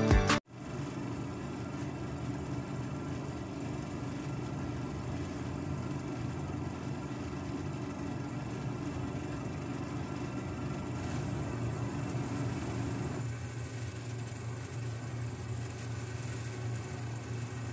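Small electric motor driving a miniature vibrating sieve, running with a steady buzzing hum. About thirteen seconds in, the tone settles lower.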